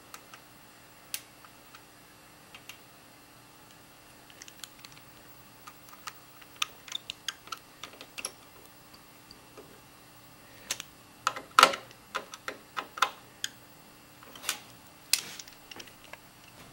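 Scattered clicks and ticks of a screwdriver driving small screws into the sheet-metal back panel of a computer case, growing busier after a few seconds, with a run of louder metallic knocks in the second half.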